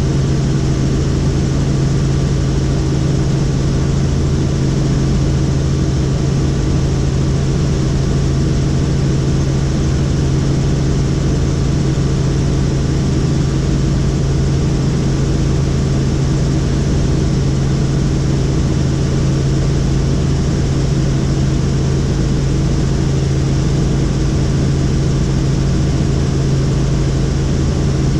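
Helicopter in flight: the steady, unchanging drone of its rotors and engine, with a strong low hum.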